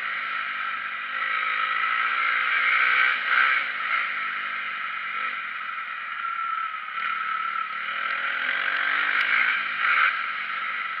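Motocross bike engine ridden hard around a track, its pitch rising and falling as the throttle opens and closes.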